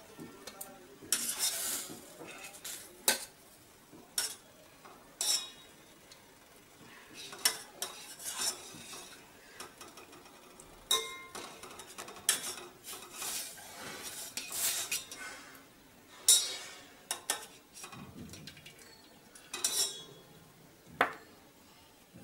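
Steel spoon clinking and scraping against a stainless-steel pot and plate while boiled tomato pieces are scooped out and set down, in scattered irregular knocks.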